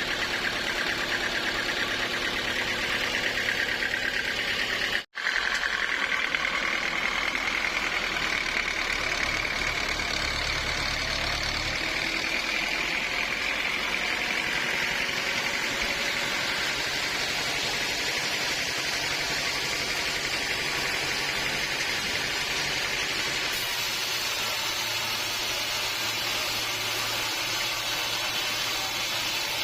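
Portable bandsaw mill running steadily: an engine drone with a high whine from the blade. The sound cuts out for an instant about five seconds in.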